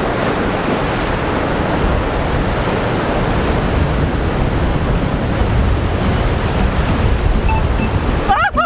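Surf washing against the rocks, mixed with wind buffeting the microphone: a loud, steady rushing noise that breaks off abruptly near the end.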